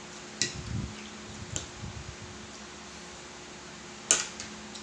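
Metal fork clinking and scraping on a ceramic plate a few times, with the sharpest clink about four seconds in, and soft chewing sounds between the first clinks. A steady low hum runs underneath.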